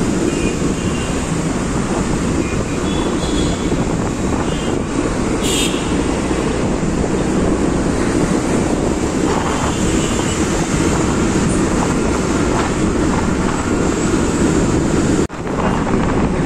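Wind buffeting the microphone while riding pillion on a motorcycle, with the motorcycle's engine and city traffic running underneath. The sound drops out briefly near the end.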